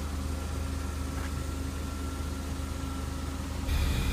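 Car engine idling with a steady low hum. A louder hiss joins near the end.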